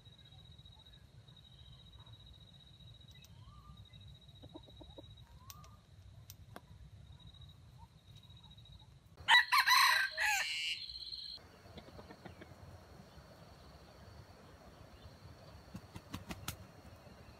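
A junglefowl rooster crows once, about nine seconds in: a short, loud crow of about two seconds. Underneath runs a faint, steady high-pitched tone.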